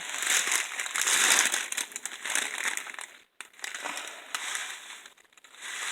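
Plastic food packaging crinkling and rustling as it is handled, with two brief pauses.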